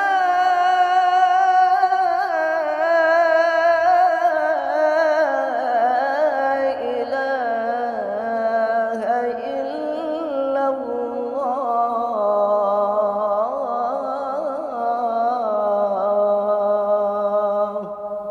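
A man singing the Islamic call to prayer (adhan) in maqam Nahawand: one long, richly ornamented melisma on "ashhadu an la ilaha illallah", sinking gradually in pitch and dying away near the end.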